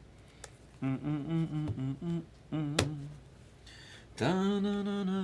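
A man humming a tune to himself in short wavering phrases, ending on a long held note near the end. A single sharp click cuts in about three seconds in.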